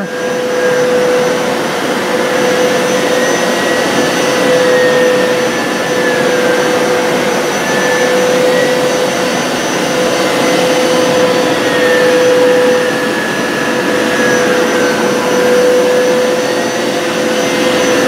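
Hoover PowerScrub XL Pet carpet cleaner running on its deep-clean setting, its 10-amp suction motor and brushes going steadily as it is pushed over wet carpet. A steady motor hum carries a fainter higher whine that drifts slowly up and down.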